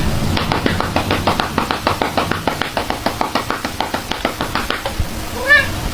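Rapid light tapping, several taps a second, with a single short cat meow near the end.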